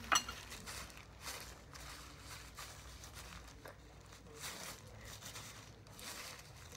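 Soft rustling and handling noises from plastic-gloved hands shaping seaweed rice balls on a plate, with one sharp click just after the start and a few brief swishes after it.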